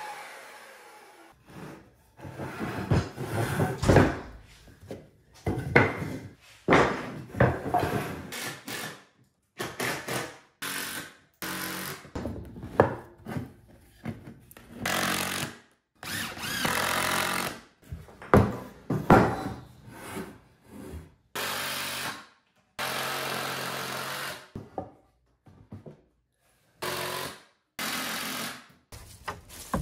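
A string of short power-tool bursts, among them a cordless drill driving screws into 2x4 lumber, with wood being handled and knocked in between.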